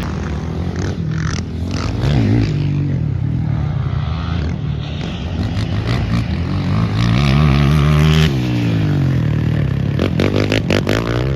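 Racing quad (ATV) engines revving hard as the machines go past on a motocross track, rising and falling in pitch. The loudest passes about eight seconds in, its pitch dropping away after it.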